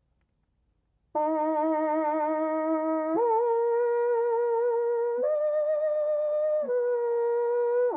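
Kudu horn fitted with a French horn mouthpiece, played by lip buzzing. About a second in, a sustained low note with vibrato starts, then slurs up to a higher note, steps up again to a third, and comes back down, showing the three notes this horn can play.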